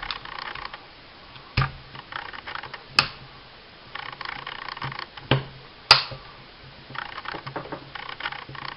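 Small metal parts of a 9mm 'baby 1911' pistol clicking and scraping as the recoil spring retainer is pushed down. Four sharper clicks stand out among light rattling.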